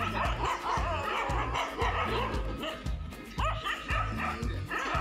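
A group of dogs barking and yipping at one another, the barks rapid and overlapping, with a brief lull about three seconds in. Background music with a steady beat plays underneath.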